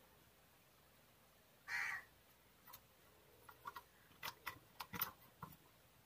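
Wire ends of a ceiling fan capacitor being twisted together by hand: a scatter of faint small clicks and rustles in the second half. About two seconds in comes one short, louder harsh sound.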